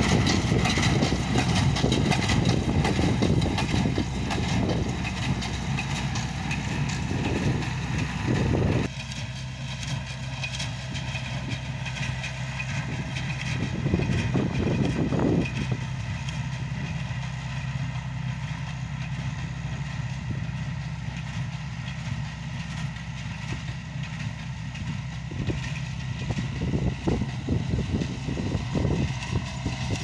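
Marshall 702 tractor's diesel engine running steadily as it pulls a small square baler that is baling hay, with the baler's mechanism clattering along behind it. About nine seconds in, the sound suddenly drops and is heard from farther off.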